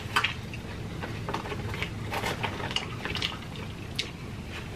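Eating sounds: chewing on salad and breadstick, with scattered light clicks and scrapes of a fork in a plastic salad container.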